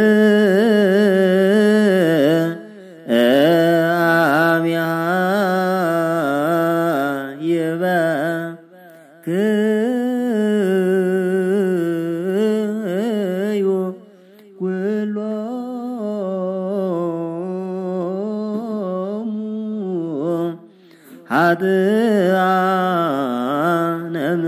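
Ethiopian Orthodox Ge'ez liturgical chant (zema) in the tekle zimame style, sung by men. Long melismatic phrases wind slowly in pitch, with short breaks for breath about every five to six seconds.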